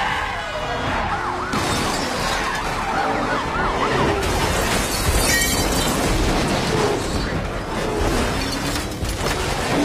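Police car sirens wailing, several overlapping, their pitch rising and falling quickly over dense car-chase noise from engines and tyres. A sudden sharp impact about five seconds in.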